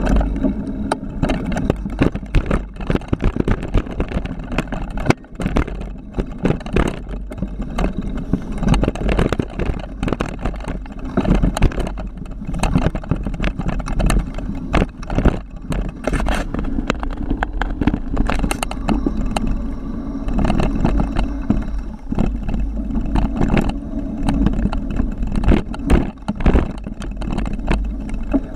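Kron XC 500 mountain bike rattling and clattering as it descends a rough dirt downhill trail, with constant irregular knocks from bumps and a heavy wind rumble on the action-camera microphone.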